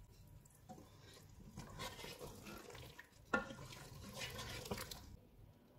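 Wooden spatula stirring thick chicken curry in a metal pressure cooker pot, faint and wet, with one sharp knock about three seconds in.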